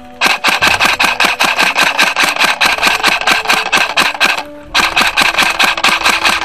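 Airsoft electric rifle firing on full auto, a fast even rattle of about eleven shots a second in long strings, with short breaks right at the start and about four and a half seconds in.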